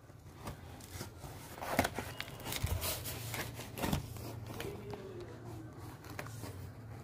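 Cardboard box flaps being pulled open and handled: scattered rustles and scrapes with a few sharper knocks, the loudest about two and four seconds in.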